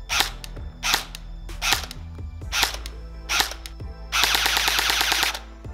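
Cyma CM.515 airsoft electric gun firing: five single shots a little under a second apart, then a continuous burst of fire lasting just over a second.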